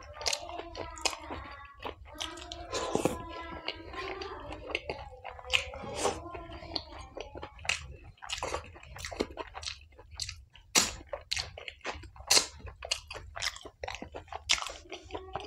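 Close-miked mouth sounds of eating with the fingers: chewing, lip-smacking and sucking chickpea curry off the fingertips, heard as a run of sharp, wet clicks.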